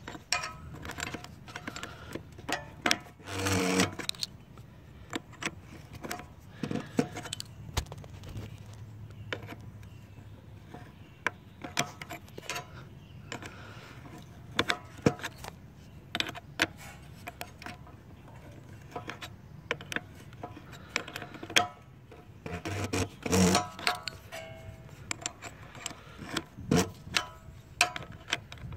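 Irregular metallic clicks and clinks of a wrench and hands working on a lawn tractor engine's carburettor fuel bowl and solenoid, with a few louder clatters.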